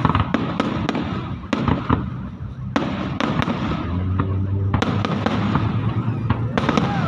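Aerial fireworks exploding: an irregular run of sharp bangs and cracks over a continuous low rumble of more distant bursts.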